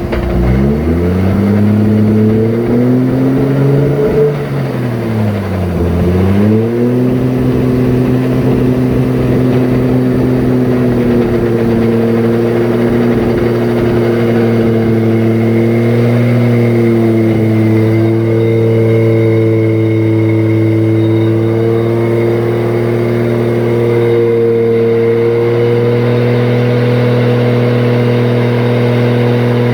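Toyota Supra's 2JZ inline-six engine running, with a T56 Magnum gearbox fitted: the revs drop and climb back twice in the first few seconds, then hold nearly steady. A faint high steady whine joins from about twelve seconds in, while the owner is hunting a noise that appeared after the gearbox install.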